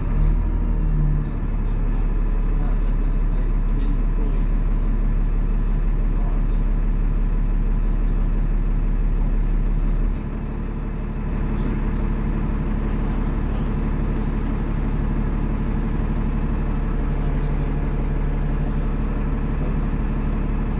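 Dennis Trident double-decker bus's diesel engine running steadily under way, a continuous low drone. About halfway through it drops to a lower, quieter note, as at a gear change or easing off the throttle.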